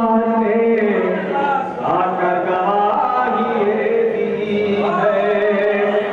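A man singing Urdu devotional verse in a slow melodic chant into a microphone, holding long notes that glide between pitches.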